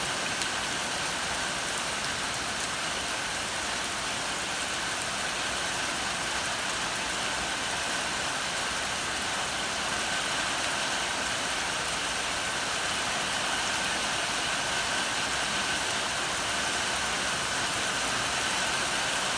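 Steady rain falling, an even hiss of drops that keeps up without a break.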